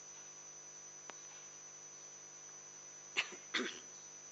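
Two short coughs from a person about three seconds in, over a steady electrical hum from the room's sound system.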